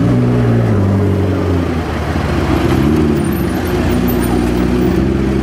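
McLaren's twin-turbo V8 running at low revs as the car pulls away slowly, the engine note rising and falling briefly about three seconds in, over city traffic noise.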